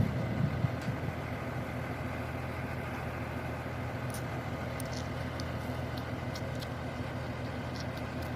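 Engine of a construction machine running steadily at low revs, with a louder surge in the first second. A few faint clicks sound over it in the second half.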